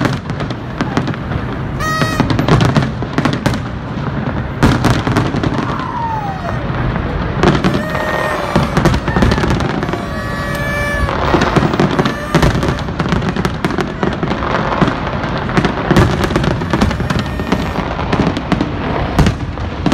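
Fireworks display: aerial shells bursting in a dense, unbroken run of bangs and crackling, with a few short whistling tones among them.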